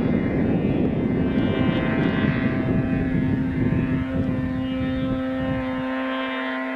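Snowmobile engine running hard at a steady pitch, with a rough low rumble under it. The rumble drops away near the end, leaving a steady engine hum.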